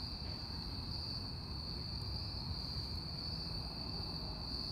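Crickets trilling in a steady, continuous high-pitched chorus, over a low rumble.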